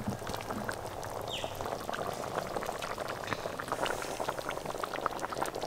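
Chicken and potato curry boiling hard in an open metal pot, a dense crackle of bubbles popping through the frothy gravy. The water has been added and the potatoes are simmering until tender.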